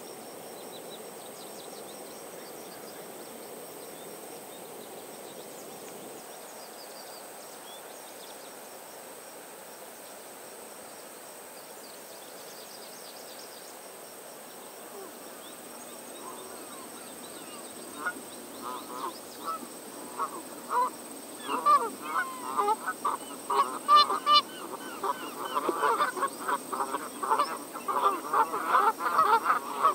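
A steady low hiss with faint high chirps of small birds, then, a little past halfway, a flock of Canada geese begins honking and builds to a dense chorus of many overlapping honks.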